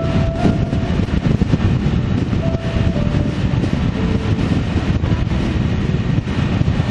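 Steady, loud rumble of a vehicle on the move, with wind buffeting the microphone, and a few brief faint squeaky tones on top.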